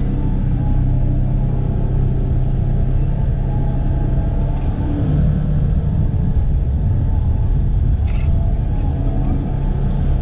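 Polaris Ranger 1000 side-by-side's twin-cylinder engine running steadily while driving, with a low rumble. A short sharp noise cuts in about eight seconds in.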